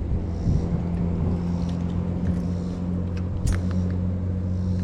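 A steady low motor hum, with a few light clicks and knocks over it, the sharpest about three and a half seconds in.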